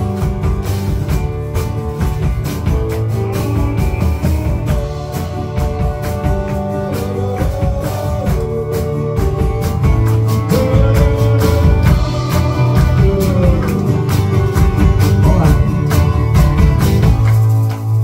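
A live rock band playing: drum kit, strummed acoustic guitar and keyboard under sung vocals. The drums stop about a second before the end, leaving a low chord ringing.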